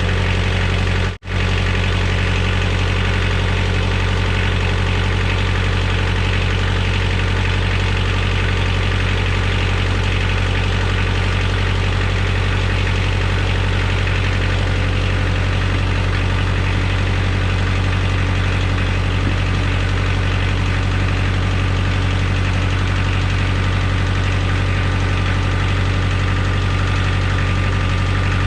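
An engine idling steadily at an even speed, cutting out for an instant about a second in.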